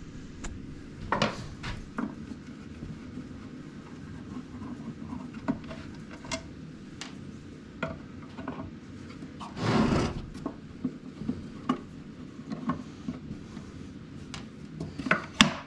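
Scattered small knocks and clicks of objects being handled and set down, with a brief louder scrape about ten seconds in and a few sharper clicks near the end.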